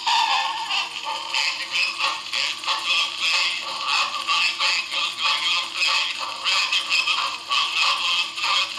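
Columbia AQ Graphophone cylinder phonograph playing a 1920s-style dance-band tune acoustically through its horn: thin, bass-light music with a steady beat.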